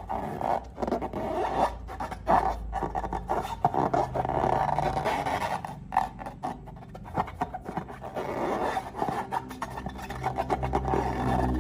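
Slime being worked by hand or tool: a dense, irregular run of wet scraping, rubbing and small sticky clicks.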